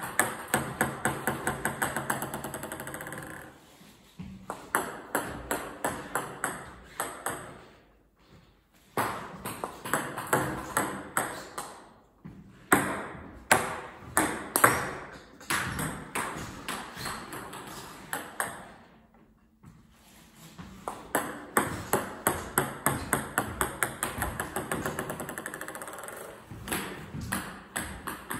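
Plastic table tennis balls bouncing over and over on the table and floor: runs of quick sharp clicks that fade as the balls come to rest, with short pauses between runs.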